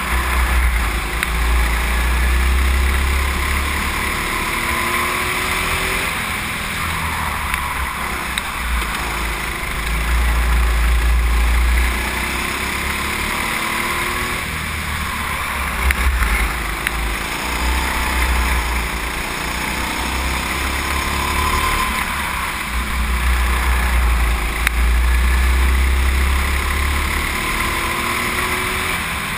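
Go-kart engine running under way, its pitch rising and falling as the kart speeds up and slows, with a heavy low rumble on the microphone that comes in surges every several seconds.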